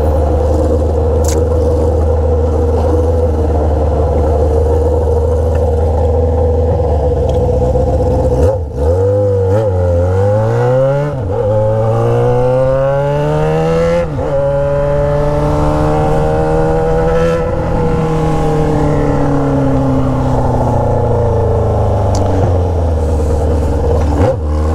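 Yamaha XJ6 600 cc inline-four running through an Atalla straight-pipe 4-into-1 exhaust with no muffler, heard on board. It runs steadily at low revs for about eight seconds, then pulls away and accelerates through the gears: three rising pulls, each broken by a brief dip at the gear change. It then eases off with a slowly falling pitch, and there is another shift and pickup near the end.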